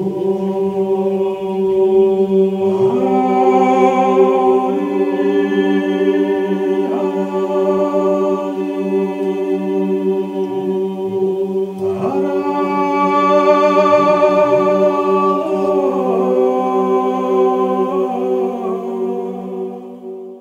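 Intro music: a choir singing unaccompanied, holding sustained chords over a steady low drone note. The upper voices move to a new chord every few seconds, and the music fades out at the end.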